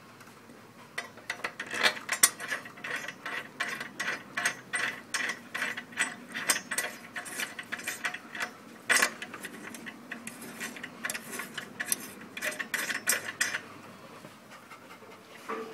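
Mower blade bolt and washers being turned in by hand: a run of light, irregular metallic clicks, two or three a second, with one louder click about two-thirds of the way through, stopping shortly before the end.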